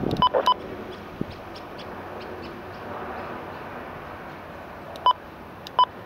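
Two pairs of short, sharp electronic beeps, one pair right at the start and another about five seconds in. Under them runs a steady hiss of wind and the distant jet noise of a Boeing 737-900ER's turbofan engines on its landing rollout.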